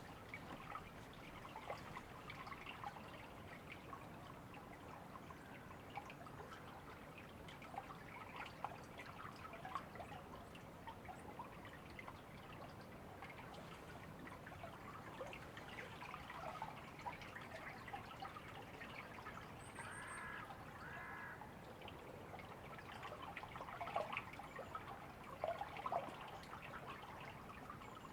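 River water trickling and splashing: a steady, faint rush of flowing water with many small splashes and drips. A bird calls twice briefly about twenty seconds in.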